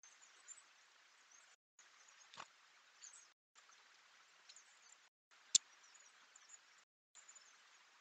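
Faint outdoor hiss of a trail camera's microphone, chopped into short stretches by brief silent gaps, with a few small, high, sped-up bird chirps. A faint click about two and a half seconds in and a sharp click about five and a half seconds in stand out.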